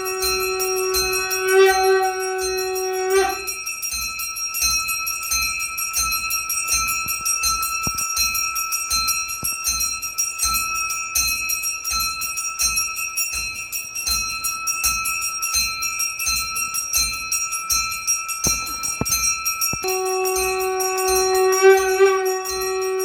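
Puja bells being rung rapidly and without pause, giving an even metallic jangle. A long held note with overtones sounds through the first three seconds and comes back near the end.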